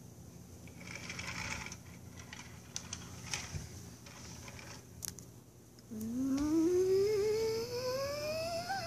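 A child's voice making a jet takeoff sound: a rising whine that starts about six seconds in and climbs steadily in pitch for about three seconds. Before it, soft scraping and a few clicks as the plastic Lego jet is pushed across the tiled floor.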